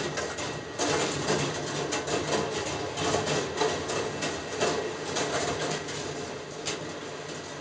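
Balls rolling along the copper rail tracks of a rolling ball sculpture: a steady rolling rumble with frequent small clicks and clacks as they run over the track, switches and lift.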